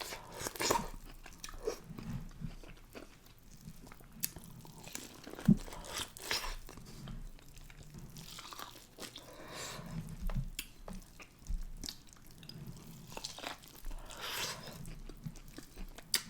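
Close-miked eating sounds: a person chewing and biting through a seafood boil of mussels, potatoes, corn and eggs, with irregular wet smacks and clicks and one sharp click about five and a half seconds in.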